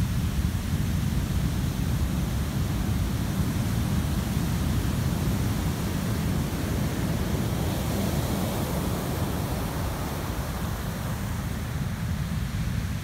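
Heavy surf breaking on the shore and washing up the sand: a steady, dense rush of water with a deep low rumble.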